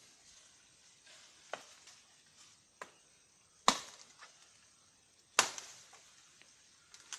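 Chopping blows of a blade cutting into wood, five sharp cracks about every one and a half seconds, the two in the middle loudest.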